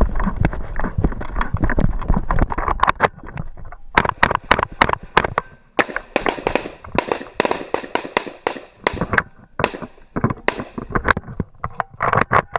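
Gunfire from an FB Mini-Beryl carbine: many sharp shots in quick, irregular strings, each with a short ringing tail.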